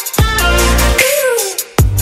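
Electronic background music with deep bass drum hits and a gliding synth line; the bass drops away briefly before a hard hit near the end.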